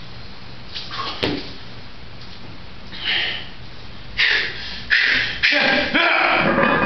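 A weightlifter's short, forceful breaths through clenched teeth as he braces to pull a heavy hex bar deadlift: a few at first, then coming quickly and loudly from about four seconds in, with one longer breath near the end.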